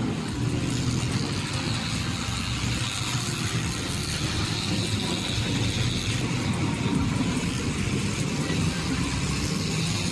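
Racing motorcycle engines running at speed around the circuit, a continuous drone with no single clear pass-by.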